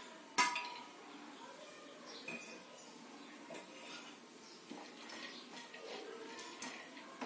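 A steel plate clinks sharply against a steel kadai as small pieces of dried coconut are tipped into ghee. Then a steel spoon stirs them, with faint scattered scrapes and clinks against the pan.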